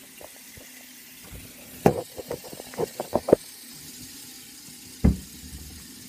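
A quick run of about eight knocks and bumps, then a single heavy thump a couple of seconds later, over a faint steady hiss.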